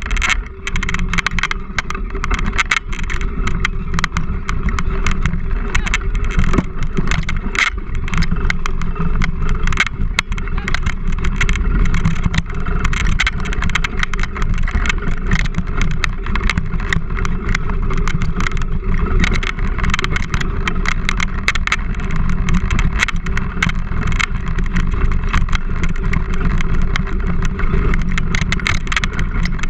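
Wheeled rig rolling fast over a rough dirt trail: a steady rumble with constant rattling clicks.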